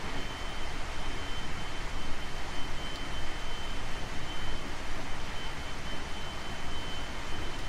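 Running sound of a JR 521 series electric train with Toshiba IGBT VVVF traction equipment, under way on the line: steady wheel-and-rail rumble with an unchanging high whine above it.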